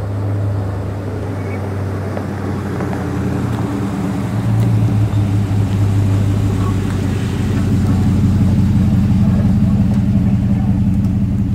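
A vehicle's engine running with a steady low hum, growing louder about four and a half seconds in and again later.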